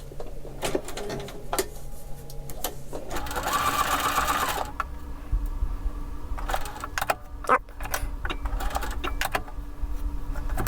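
Domestic sewing machine stitching Velcro onto fabric in short stretches, with a steady low motor hum in the second half and scattered clicks and rustles of the fabric being handled.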